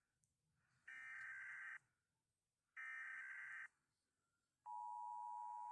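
United States Emergency Alert System alarm: two short screeching digital data bursts of the alert header about a second apart, then, about three quarters of the way in, the steady two-tone attention signal starts.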